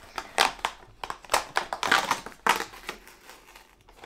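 Cardboard and paper packaging crackling and tearing in several short bursts as a cardboard advent calendar door is opened and its contents unwrapped. The noise dies down near the end.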